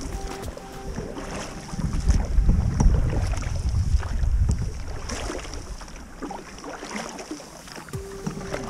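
Wind buffeting the microphone in gusts, strongest in the first half, over water splashing and lapping against a canoe as it is paddled across a choppy lake.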